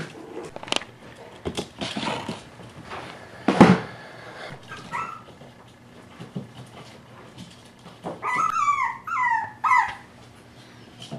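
Miniature Pinscher puppies whining: a short squeak about five seconds in, then three high, falling whines near the end. Before them come a few light knocks and one louder thump.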